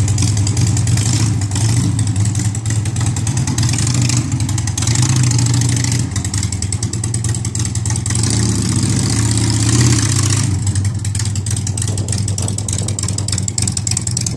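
Harley-Davidson motorcycle's air-cooled V-twin engine running steadily at low speed while the bike is ridden slowly, rising a little about eight to ten seconds in.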